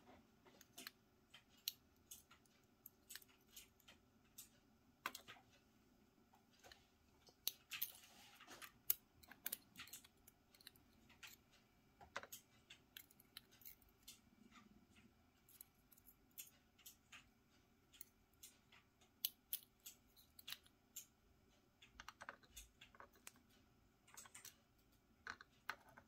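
Faint, irregular clicks and taps of small metal lock parts and tools as an M&C Matrix lock cylinder is taken apart, its pins, springs and drivers being removed.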